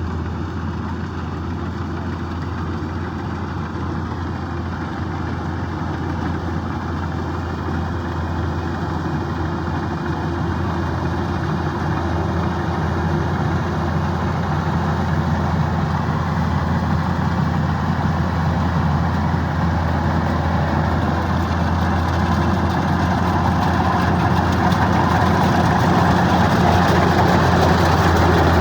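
Kubota DC-105X combine harvester's diesel engine running steadily, growing gradually louder.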